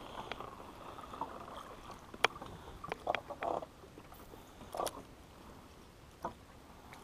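Handling noise from a spinning rod and reel during a cast and retrieve: a few sharp clicks and a short cluster of rattles midway, over faint water lapping at the boat.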